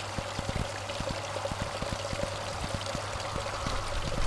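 Water from a garden water feature falling in thin streams off a wooden spout into a rocky pool. It makes a steady splashing trickle, with many small droplet splashes.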